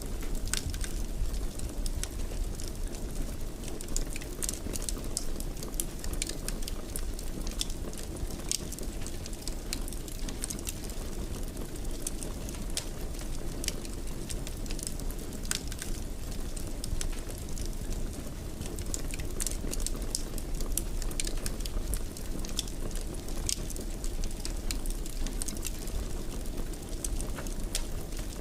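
Wood fire burning in a fireplace, a steady low rush of flames with frequent irregular crackles and pops throughout.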